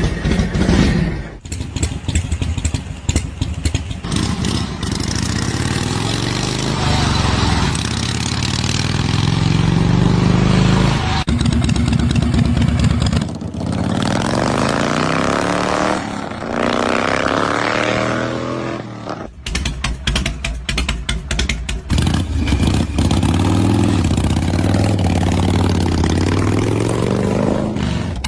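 Harley-Davidson motorcycle engines running and revving in a series of short clips, the pitch climbing as the throttle opens and dropping back, with sudden switches from one engine to the next.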